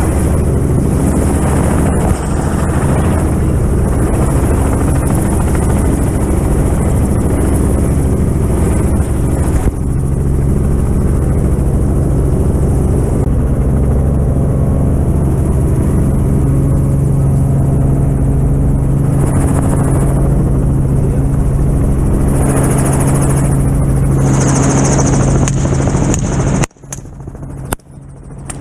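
Steady engine and rotor noise of a light helicopter, heard from inside its doors-off cabin. The sound cuts out briefly twice near the end.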